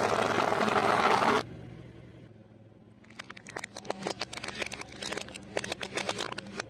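Plastic toy trucks cracking and snapping under a slowly rolling car tyre: a dense run of sharp cracks from about three seconds in. Before that, a loud, even rushing noise lasts for the first second and a half and stops abruptly.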